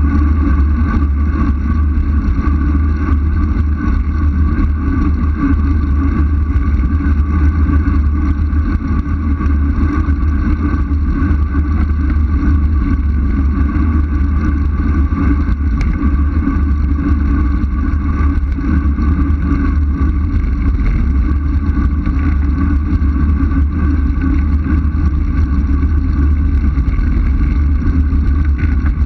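Wind rushing over a moving camera's microphone on a fast road-bike descent: a loud, unbroken rumble with a steady hum above it.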